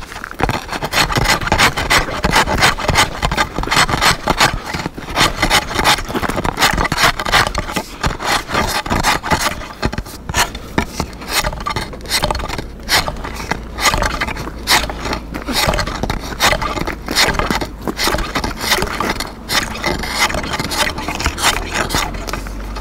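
Steel ice chisel chopping and scraping into lake ice to open a fishing hole, crunching through ice and slush in quick repeated strokes, a few each second.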